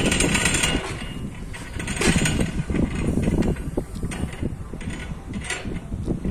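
Well pulley creaking and clattering in uneven bursts as the rope runs over it, lowering a bucket into an open well.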